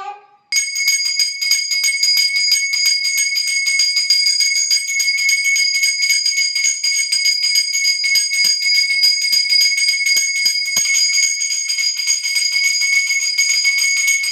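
Brass puja hand bell rung rapidly and without pause, a steady high ringing that starts abruptly about half a second in; it is the bell rung during an aarti lamp offering.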